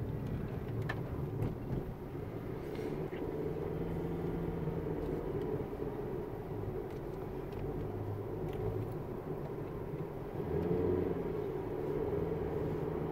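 Car driving steadily, heard from inside the cabin: an even low rumble of engine and tyres on the road, with a few faint clicks.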